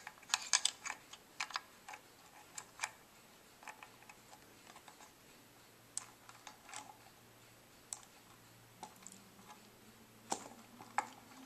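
Small metal clicks and ticks of a Stratocaster bridge saddle being fitted: the intonation screw and spring being worked in with a screwdriver. A quick cluster of clicks in the first few seconds, then only occasional single clicks.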